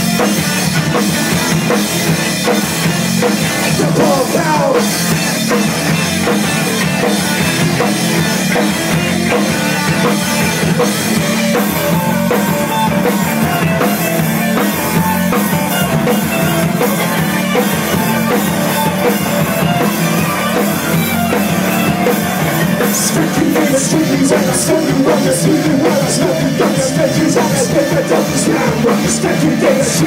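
Live rock band playing a loud, continuous passage, with the drum kit driving it.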